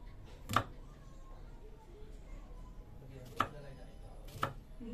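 Kitchen knife slicing garlic cloves on a wooden chopping board: three sharp knocks of the blade against the board, spaced a second or more apart.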